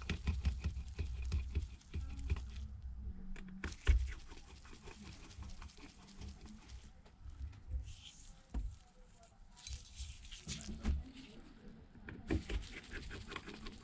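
Irregular small clicks and taps of precision tools against a phone being taken apart while its screws are removed, with a louder knock about four seconds in.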